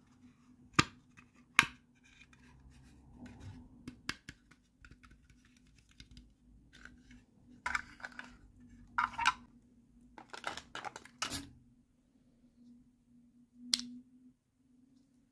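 Small hard plastic toy pieces clicking, tapping and scraping as they are handled and set down: two sharp clicks about a second in, clusters of rattling taps in the second half, and a single click near the end. A faint steady low hum runs underneath.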